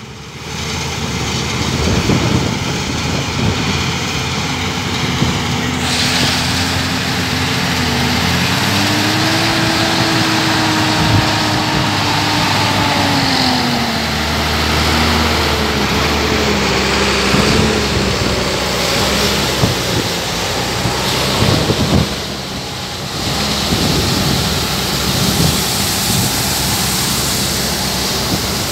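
Claas combine harvester running while harvesting grain, with a John Deere tractor pulling a grain cart alongside it: a loud, steady machinery drone. Near the middle, an engine note rises and falls several times.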